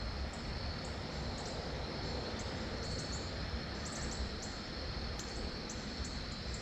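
Evening insect chorus: a steady high-pitched trill with short, higher chirps repeating about twice a second over a soft low rumble.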